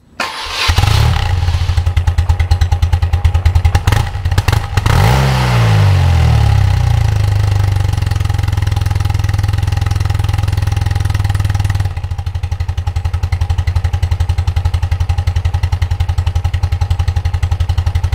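BMW R80's air-cooled flat-twin engine running at idle with an even, pulsing beat. It comes in about a second in, rises and falls in pitch in a short rev around five seconds in, then settles back to idle and turns somewhat quieter about twelve seconds in.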